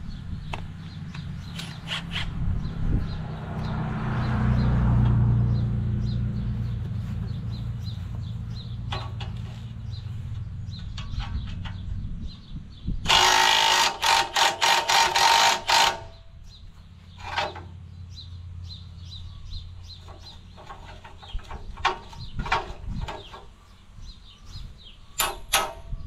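Hand tool working on the steel frame of a tractor-mounted cultivator: scattered clinks and knocks, with a loud run of quick strokes about halfway through. A low rumble sits under the first half.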